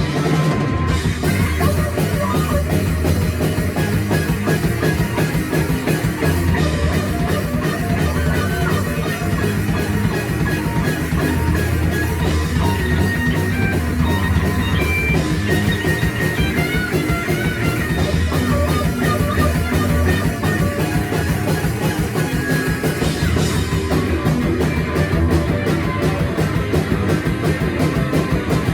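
Rock band playing live with drum kit and guitars, a continuous loud rock instrumental passage.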